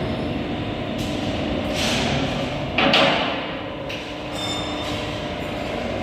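Semi-automatic petpack baler running with a steady mechanical hum, broken by metal knocks and clanks; the loudest clank comes about three seconds in.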